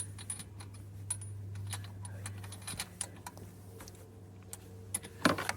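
Irregular metallic clicks and clinks of a spark plug wrench working a spark plug out of a Polaris 850 two-stroke snowmobile engine, with a louder clatter near the end. A steady low hum runs underneath.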